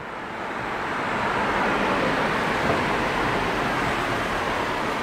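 Steady city street traffic noise: cars running along the road, an even rush that swells in over the first second or so and then holds.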